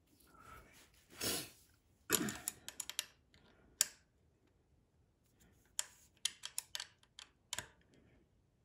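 Irregular small metallic clicks and rattles in two bursts, a few seconds apart, as the mounting screws of a bicycle's mechanical disc brake caliper are worked loose with a hand tool.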